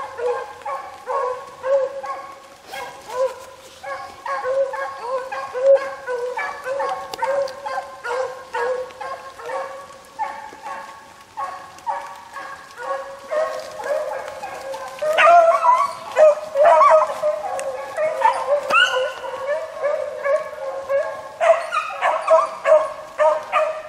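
A pack of beagles baying steadily as they run a rabbit's scent trail, many short, overlapping hound voices. The cry grows louder and busier about two-thirds of the way through.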